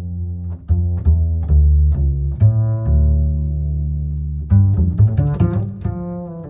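Background music of slow, low-pitched notes, with one low note held for about a second and a half in the middle and a busier run of notes near the end.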